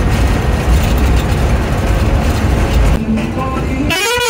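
Inside a bus cab, the engine and tyres make a heavy, steady rumble on a rough gravel road surface, which eases about three seconds in as the bus rolls onto smooth asphalt. Near the end a vehicle horn sounds with a wavering, bending pitch.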